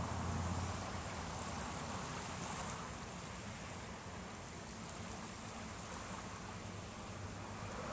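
Gentle surf washing onto a sandy beach, a steady hiss, with a low engine hum that fades about a second in and returns near the end.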